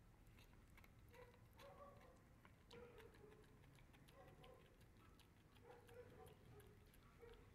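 Dog gnawing a knotted rawhide bone: faint, irregular clicks of teeth on the chew, with short soft squeaks every second or so.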